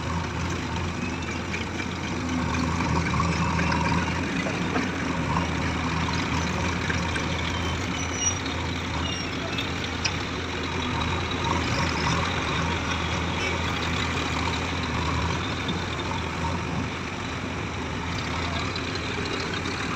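Diesel engines of a JCB 3DX backhoe loader and a farm tractor running steadily, a constant low engine drone. Two brief sharp ticks stand out about eight and ten seconds in.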